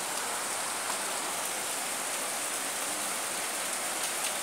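Steady pouring rain, an even hiss with no breaks.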